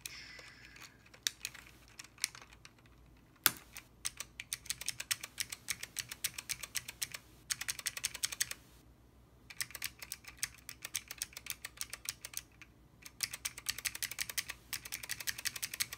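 Typing on Alps-switch keys fitted with Signature Plastics 1Z-mount doubleshot ABS sample keycaps: a few scattered clicks, then one sharp loud clack about three and a half seconds in, then fast runs of key clacks broken by two short pauses.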